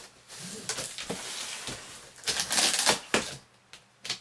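Knife cutting and scraping along the packing tape on the top seam of a cardboard box, with the tape tearing and the cardboard rasping; a couple of short taps follow near the end.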